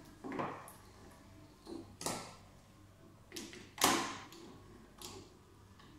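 About five sharp knocks and clunks of hands and a tool working a fitting on the front panel of a Soprano laser machine's casing. The loudest comes just before four seconds in.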